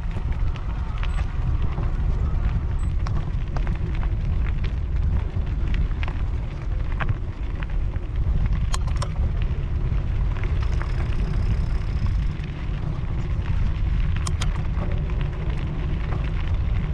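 Wind buffeting the microphone of a bike-mounted camera, a steady low rumble, with scattered clicks and crackles from an e-mountain bike's tyres rolling over a gravel track.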